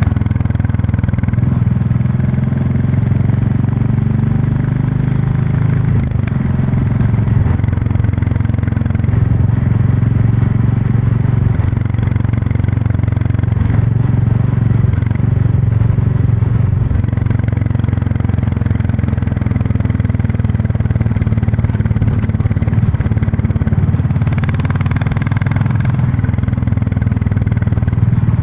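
Royal Enfield Classic 350's single-cylinder engine and exhaust running steadily while under way, heard from on the bike, its pitch shifting a little in the first few seconds.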